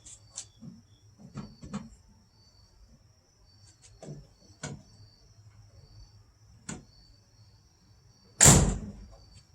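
Light clicks and knocks of hands working the door glass into a 1957 Chevrolet Nomad's door, then a loud thump near the end as the door is shut.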